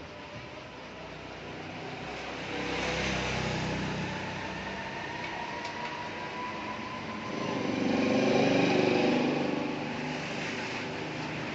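Road traffic: two motor vehicles pass by, each engine swelling and fading, the second one louder about eight seconds in.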